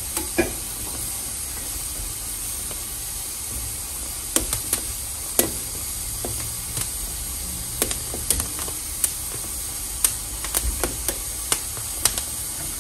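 Gas stove burners hissing steadily with a low rumble as poblano chiles blister and char directly on the flames, with scattered sharp clicks and pops throughout.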